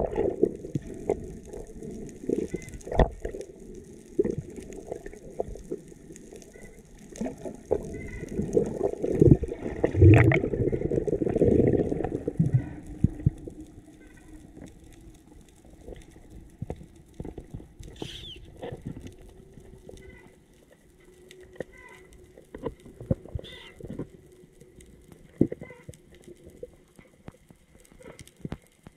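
Muffled underwater water noise picked up by an action camera below the surface, with many sharp clicks and knocks. It is loudest in the first half and gets quieter about halfway through, when a faint steady hum comes in.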